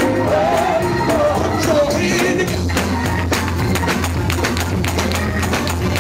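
Live gospel church music. A voice sings a wavering, held line for about the first two seconds, then the band carries on with a steady bass line and quick, evenly spaced percussion.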